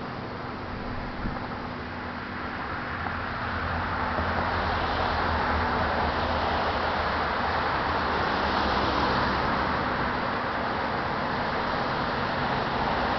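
Road traffic: a steady haze of engine and tyre noise with a low engine hum, swelling about three to five seconds in as a vehicle draws near, then holding.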